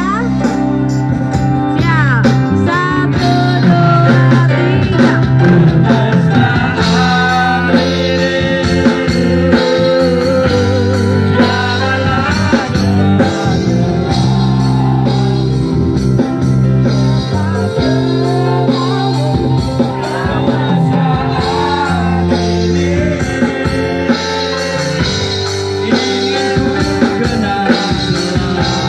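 Amplified music with several people singing together into microphones, carrying on without a break.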